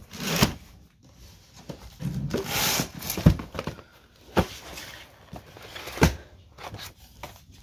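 Papers and small objects rustling and shuffling as they are handled and sorted by hand, with three sharp knocks as things are set down.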